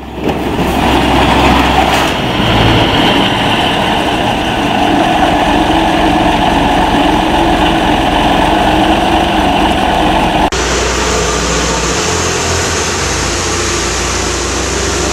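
Large four-wheel-drive tractor's diesel engine running steadily as it drags a heavily loaded skid of steel pipes and tyres. About ten and a half seconds in, the sound cuts suddenly to a Case IH Steiger Quadtrac 620 tracked tractor's engine running as it drives along.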